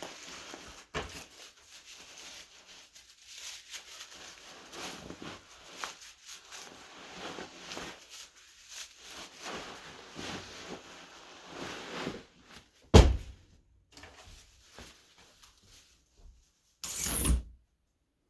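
Foley sound effects: irregular rubbing and rustling, then a single sharp knock, and near the end a short, loud burst of noise that cuts off suddenly.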